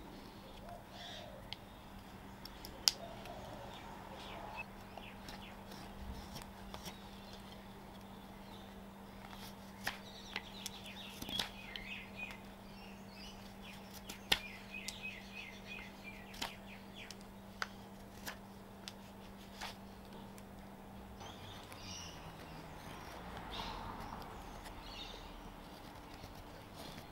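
Straight carving knife slicing shavings from a spalted birch spoon: sparse sharp snicks of the blade through the wood. Small birds chirp in short runs in the background, and a faint steady hum runs until a little past two-thirds of the way through.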